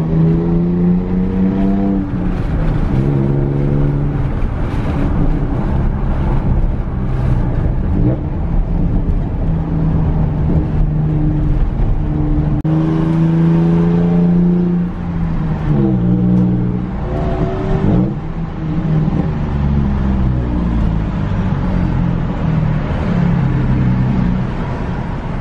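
Toyota Tacoma X-Runner's V6 running through a Flowmaster Super 10 muffler, heard from inside the cab while driving. The exhaust note climbs with revs and drops at gear changes, first about two seconds in and again partway through.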